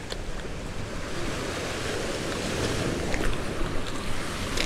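Sea surf washing against the rocks of a jetty, a steady rushing noise with wind rumbling on the microphone and a few faint ticks.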